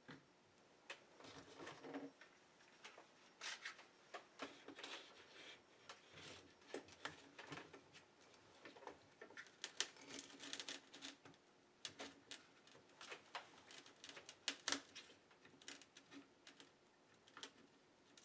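Faint, irregular clicks and scrapes of one-handed bar clamps being fitted and tightened over the cover of an ABS electronic brake control module, with hands handling the metal housing.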